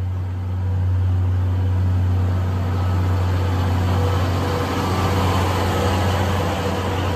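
Steam-hauled train of blue passenger coaches rolling slowly past along a station platform as it pulls out: a steady low hum under wheel-on-rail rolling noise that grows louder partway through.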